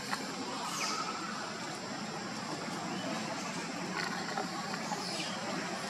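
Steady outdoor background noise with a constant faint high tone, and two short, faint chirps that fall in pitch, about a second in and near the end.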